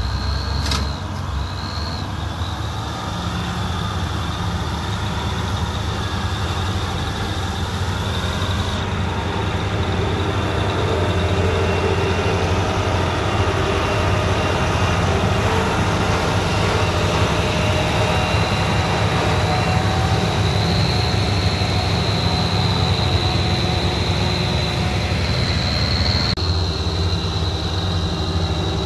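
Diesel tractor engines running steadily under heavy load while pulling a trolley piled with sugarcane. The sound changes abruptly twice, about nine seconds in and again near the end.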